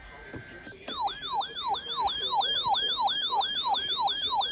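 An electronic siren in a fast yelp, each cycle a quick falling sweep, about three a second, starting about a second in.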